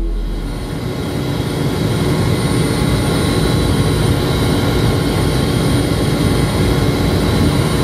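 A loud, steady engine roar with a thin, high, steady whine running over it.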